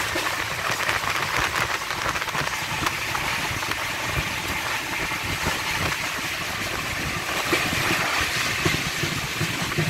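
Rajdhani Express coach running fast, heard from the open doorway: a steady rush of wind and wheel-on-rail noise, with sharp clacks scattered through it as the wheels pass over rail joints.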